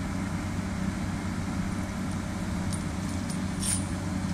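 Komatsu PC200 excavator's diesel engine running steadily under work, with a short high-pitched click near the end.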